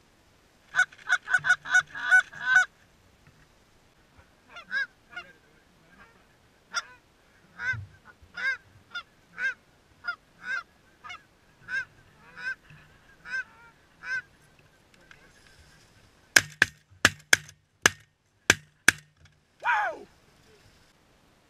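Canada goose honks and clucks from a hunter's goose call: first a fast run of clucks, then single honks at a bit under one a second. About three-quarters of the way in comes a volley of about seven shotgun blasts in under three seconds, the loudest sounds, followed by one more honk.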